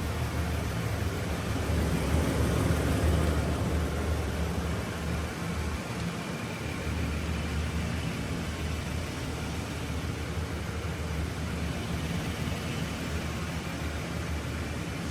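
A vehicle engine running steadily, a low even hum with a noisy hiss over it.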